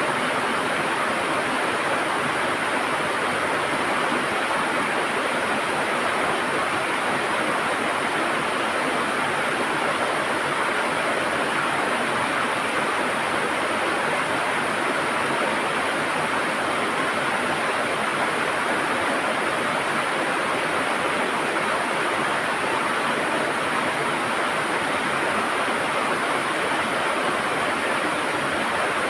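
River water flowing over stones in a steady, even gurgling rush.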